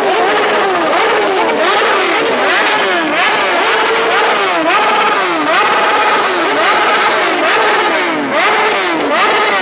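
Superbike engines revved again and again, quick throttle blips whose pitch rises and falls, several overlapping one another without a break.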